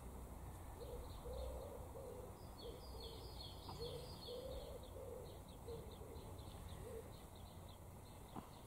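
A pigeon cooing in a run of soft, low notes, with a small songbird chirping rapidly and high above it.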